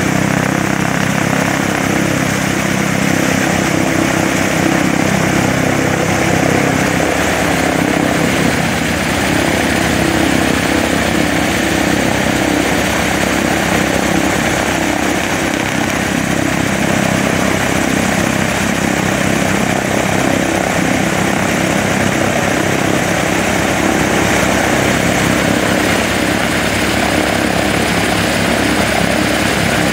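Lockheed P2V Neptune airtanker's Wright R-3350 radial piston engines running steadily, with the propellers turning, a loud continuous pulsing drone.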